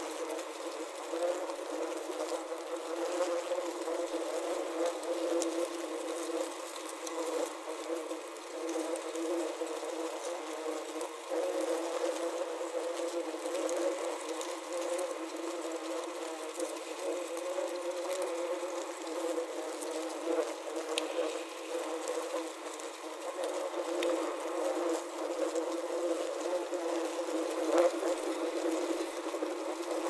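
Many wasps buzzing inside a plastic wasp trap, picked up through a contact microphone clipped to the trap's lid: a dense, steady hum of overlapping wingbeats, with occasional faint ticks.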